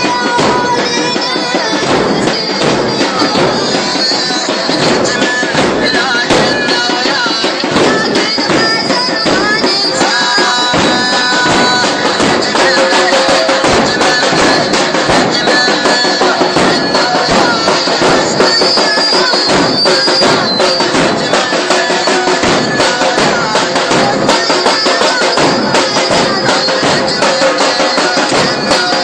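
A Muharram mourning chant (latmiya): a reciter's voice sings over dense, rapid rhythmic beating, loud and steady throughout.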